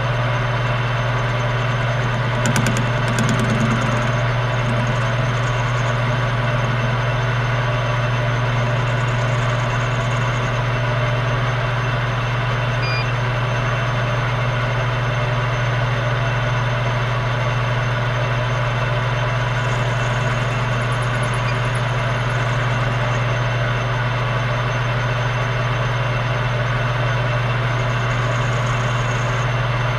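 Metal lathe running steadily while turning down a steel bar, its motor and gearing giving a loud, even hum with a few faint brief hisses high up.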